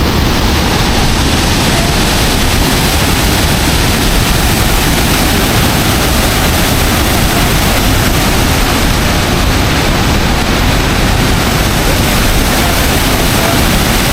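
Loud, steady rush of falling water from a waterfall, even and unbroken.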